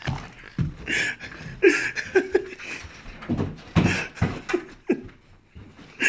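A young child's short, excited squeals, gasps and panting in quick succession, with scattered thumps in between.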